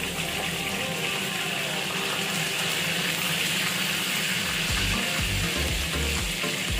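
Chicken pieces frying in hot oil with a steady sizzle as the skin browns.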